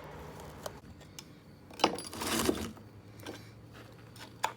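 Metal hand tools clinking and scraping against metal: a sharp click about two seconds in, then a brief scrape, and another sharp click near the end.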